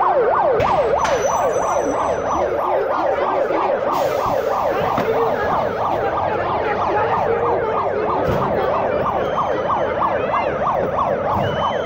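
Emergency vehicle sirens in a fast yelp, each sweeping up and down about five times a second and overlapping one another.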